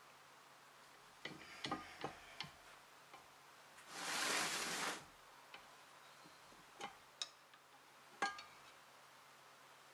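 An aerosol spray can hisses in one burst of about a second, some four seconds in. Scattered light metallic clicks and taps from handling the iron press screw and handwheel come before and after it.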